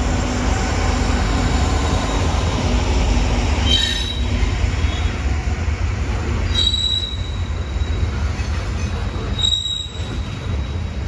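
Freight train rolling by with a steady rumble of wheels on rail, broken by three short, high wheel squeals spaced about three seconds apart.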